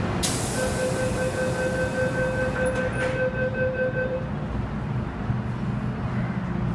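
Door-closing warning tone on an MTR Island Line M-Train, a steady beeping that lasts about four seconds while the train doors and platform screen doors shut, with a couple of clicks as they close. A hiss starts at the beginning and fades. Under it all is the low rumble of the train starting to pull out of the station.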